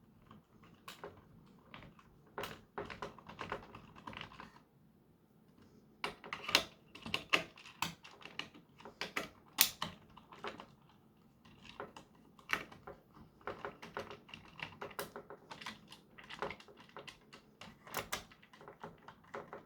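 Plastic parts of a Nerf Gatling blaster clicking, tapping and rattling irregularly as they are handled and worked apart, with a short lull about five seconds in.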